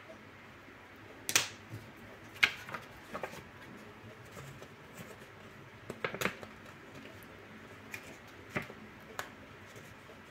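A sheet of chalkboard label stickers and a chalk marker being handled: scattered paper crackles and light clicks and taps. The sharpest clicks come about a second and a half in and again a second later, with a cluster of small ones around six seconds.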